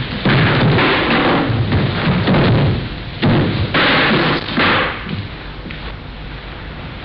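Bodies landing on a wooden floor as attackers are thrown, heard as several heavy thuds and scuffles over a constant hiss. The thuds bunch in the first five seconds and then die down.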